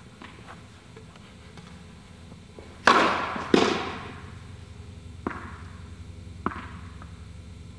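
A tennis ball being struck by rackets and bouncing on the court during a rally, each impact a sharp pop that echoes in the indoor hall. Two loud pops come about three seconds in, then two fainter ones further on.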